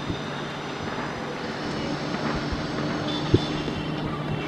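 Distant jet engines of an Airbus A320-family airliner on the runway at the start of its takeoff: a steady rumble with a low, even hum. There is one sharp knock about three seconds in.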